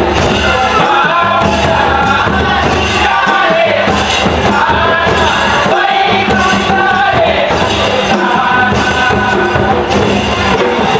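Adivasi folk dance song: voices singing a melody over a steady drum beat.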